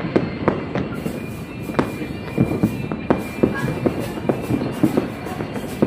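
Fireworks going off at a distance: a string of sharp bangs and crackles at irregular spacing, about two a second. Music plays in the background.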